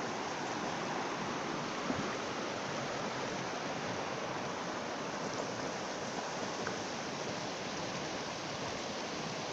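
The Rio Grande rushing steadily over a shallow, rocky riffle.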